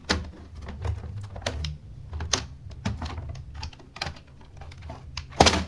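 Plastic keys of a repaired HP computer keyboard clicking as they are pressed one after another, irregularly, with the loudest click near the end, as the reassembled key mechanism is checked for alignment.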